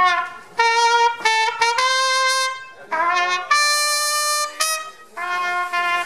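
Solo trumpet playing a slow melody of long held notes in short phrases, with brief breaths between phrases.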